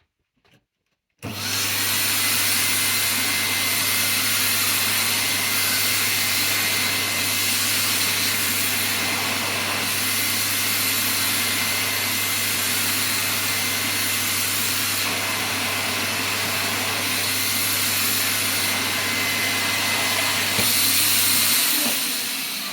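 Electrolux vacuum cleaner switched on about a second in, running steadily with a low hum and a thin high motor whine, then switched off near the end and running down.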